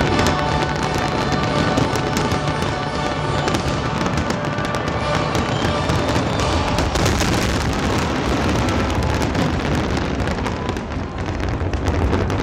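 Fireworks display in full barrage: many bursts crackling and popping without a break, with music playing alongside.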